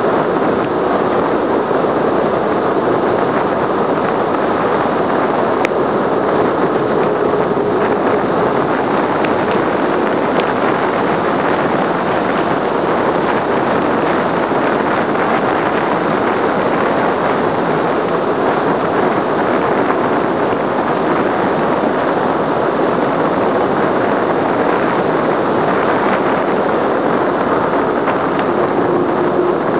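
Steady, loud rush of wind over a bike-mounted camera's microphone during a fast road-bike descent at around 50 km/h, mixed with tyre noise on the asphalt.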